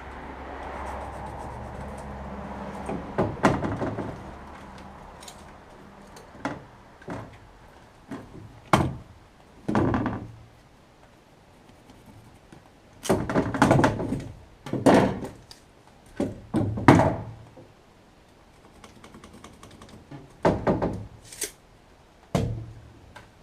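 Irregular knocks and thunks, some single and some in quick clusters, from wooden framework parts being handled and fitted. A steady noise runs underneath for the first few seconds, then stops.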